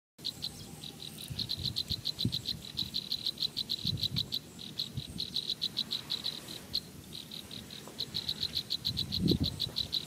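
An insect chirping in a fast, even run of short high notes, about eight a second, with a few brief breaks. Low thumps sound now and then underneath, the loudest a little before the end.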